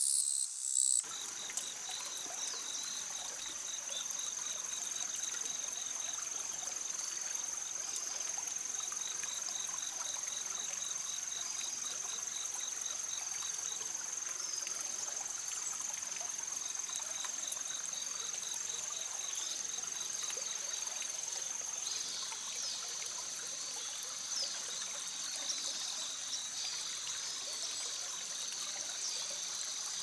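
Outdoor ambience: a steady high-pitched insect drone with a second insect's rapid pulsing trill coming and going, over a soft, even hiss like trickling water.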